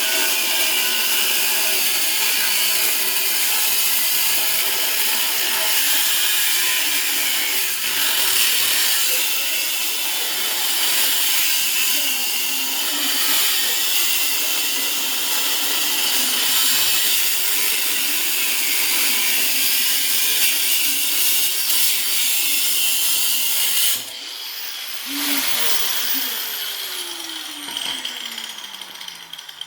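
Angle grinder cutting into a steel safe, a loud steady shriek of the cut-off disc against metal. Near the end it stops cutting and the grinder winds down with a falling whine.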